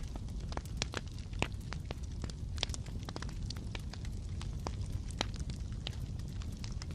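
Wood fire in a fireplace crackling, with irregular sharp pops over a steady low rumble of the flames.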